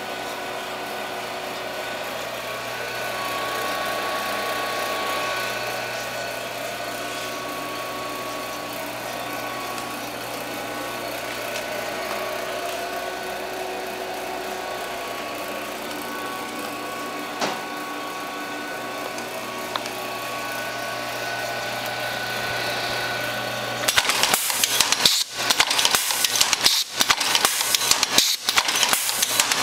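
An H-100 Autobagger bagger-sealer: a steady hum with faint tones for most of the time, then about 24 seconds in the machine starts cycling, with a rapid run of loud mechanical clacks as bags are indexed, sealed and dropped.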